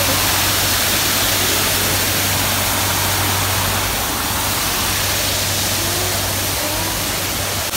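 Steady rush of an artificial waterfall, a curtain of water falling and splashing onto rocks.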